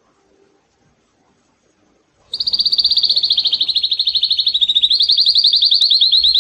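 Male domestic canary singing: a long, rapid trill of quickly repeated falling notes that starts about two seconds in after a short pause. The trill shifts slightly in pitch about halfway through and keeps going.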